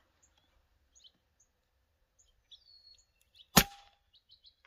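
A single shot from an FX Maverick .22 PCP air rifle firing a slug: one sharp report about three and a half seconds in, with a brief ringing tail. Faint high bird chirps come before it.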